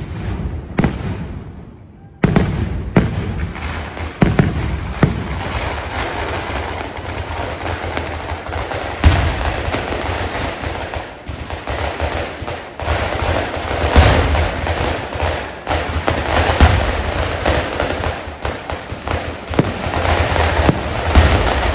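Fireworks going off: a single bang, a short lull, then from about two seconds in a continuous, rapid barrage of bangs and crackling with deep booms.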